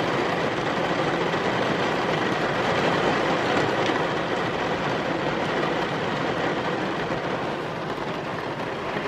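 Heavy rain drumming on a car's roof and windows, heard from inside the cabin as a steady dense hiss that eases slightly near the end.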